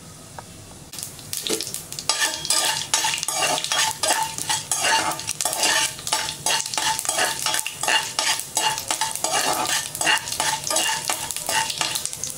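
A spoon stirring and scraping mustard seeds, cumin, fenugreek and split chana and urad dal as they fry in hot oil in a pressure cooker: the tempering stage. Dense sizzling and crackling with spoon scrapes starts about a second in.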